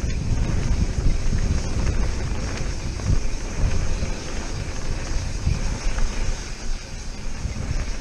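Wind rushing over the microphone and a mountain bike's tyres rumbling over a dirt and gravel trail on a fast descent, with a few light knocks from the bumps.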